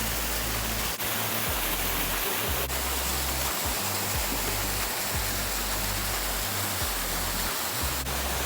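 Background music with a low bass line that changes note about every second, over the steady rushing noise of a waterfall.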